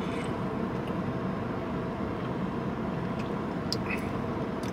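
Steady hum inside a car, with a few faint clicks and gulps near the end as a man drinks from a plastic bottle.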